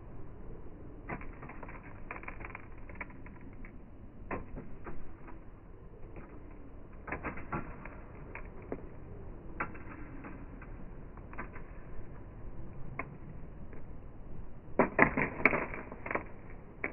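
Irregular light clicks and taps, with a quick flurry of them near the end.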